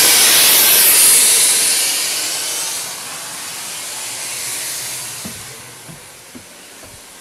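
Compressed air hissing out of the opened drain valve on a Blue Bird school bus's front air brake tank, the tank being drained to split the system and test the low-air warning. The hiss is loudest at first and fades over the next few seconds, with a few light knocks near the end.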